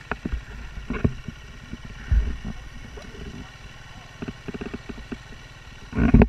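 Dirt bike engine idling steadily, with a few low thumps, the loudest near the end.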